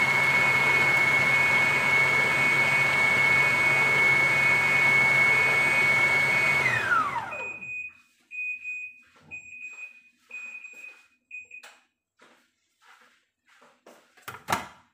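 Food processor motor running steadily with a high whine as it purées celery, carrots and onion, then switched off about seven seconds in, its whine falling away as the blade winds down. A faint high electronic beep repeats about twice a second, and light clicks and a knock follow near the end as the lid is handled.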